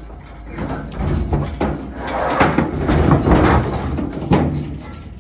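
Metal gate of a livestock trailer being opened: a run of rattling clanks and bangs, loudest past the middle.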